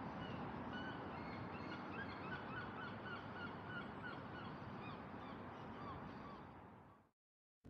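A flock of birds calling, many short repeated calls overlapping over a steady background hiss. The sound fades out to silence near the end.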